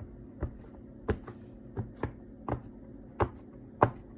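Silicone pop-it fidget toy being pressed bubble by bubble: about eight short, sharp pops at an uneven pace of roughly one every half second.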